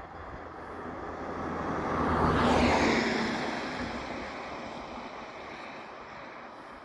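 A vehicle passing by: its engine and rolling noise swell to a peak about two and a half seconds in, then fade away slowly.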